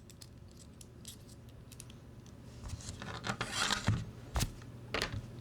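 Small screws and 3D-printed plastic case parts being handled: scattered light clicks, with a denser stretch of scraping and rattling about three seconds in.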